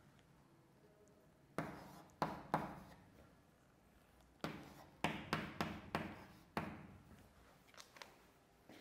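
Chalk tapping and scraping on a blackboard as an equation is written: a series of sharp taps in irregular clusters, each with a short echo.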